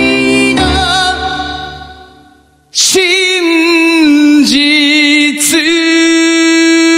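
Male pop-rock ballad vocal with piano: the voice and piano fade out over the first couple of seconds, then about three seconds in a high tenor voice comes in alone on one long note, wavering at first and then held steady.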